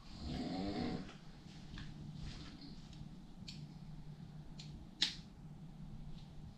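A sleeping young man snoring: one snore lasting about a second at the start. After it comes a steady low hum, a few faint ticks and one sharp click about five seconds in.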